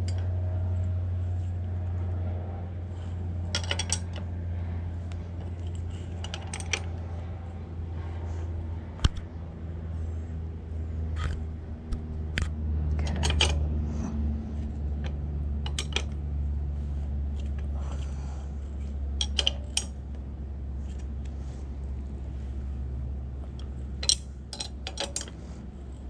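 Combination wrench clinking and clicking against the saddle clamp nuts on a bike seat post as they are tightened, in scattered irregular metal clicks, over a steady low hum.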